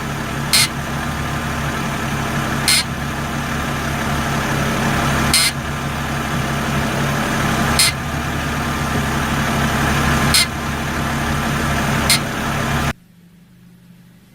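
BMW E60 running, a steady engine and road drone with a short high hiss about every two and a half seconds. The sound drops away sharply near the end.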